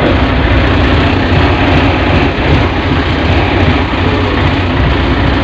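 Yanmar marine diesel engine of a lifeboat running steadily and loud, having just caught on the key with its newly installed starter motor.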